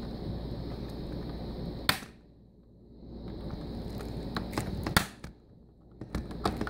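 Plastic screen bezel of a Dell Latitude E7440 being pressed back onto the lid, its clips snapping into place with sharp clicks: two loud snaps about three seconds apart, then a quick run of smaller clicks near the end.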